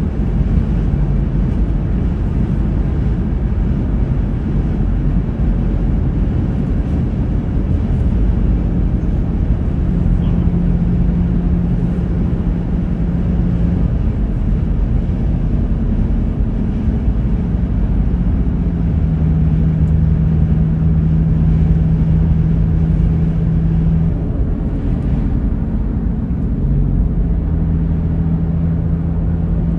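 A vehicle driving, with a loud, steady low rumble of road and engine noise. A steady hum comes and goes over it, strongest around a third of the way in, past the middle and near the end.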